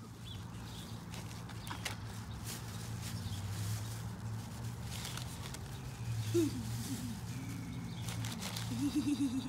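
Paper gift bag and tissue rustling and crackling as it is pulled open by hand, over a steady low hum. A few brief vocal sounds come about six seconds in and again near the end.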